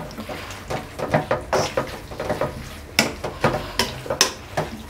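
Spatula scraping and tapping against a wok while stir-frying vegetables, a run of irregular scrapes with a few sharper knocks about three and four seconds in.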